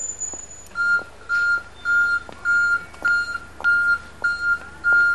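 A vehicle's reversing alarm beeping: a steady single-pitch beep repeating about every half second, eight beeps starting about a second in. A brief high-pitched tone sounds at the very start.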